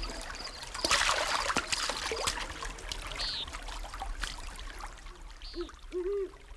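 Water trickling and lapping, with small splashes and a louder splash about a second in. Near the end, a few short, low hooting calls begin.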